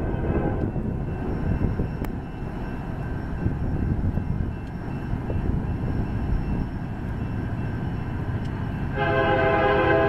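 Steady low rumble from a Union Pacific freight train and its diesel locomotives. About nine seconds in, the approaching locomotive's air horn starts sounding, a chord of several steady notes, louder than the rumble.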